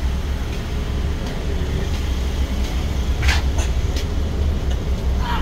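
Lamborghini sports car engine idling close by: a steady, deep rumble with no change in revs.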